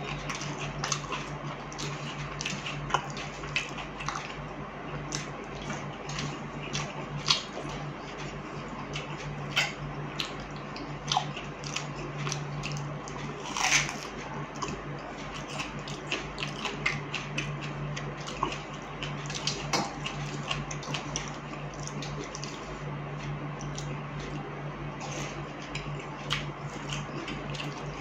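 Close-miked eating of panta bhat, rice soaked in water, by hand: wet squishing and dripping as fingers scoop the rice from its water, with chewing and lip smacks in many short clicks. A steady low hum runs underneath.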